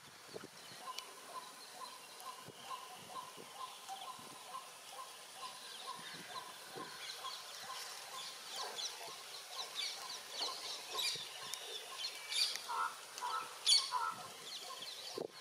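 Birds calling: one repeats a short note two or three times a second through the first half, with higher chirps of other birds over it. In the second half come short crackles and rustles of banana leaves being folded and tied, loudest near the end.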